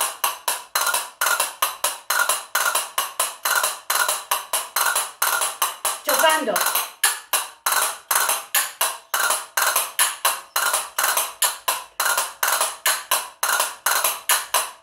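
A pair of castanets played with both hands: a steady run of sharp clacks, about four or five a second, in the riá-riá-pita exercise of finger rolls and strokes.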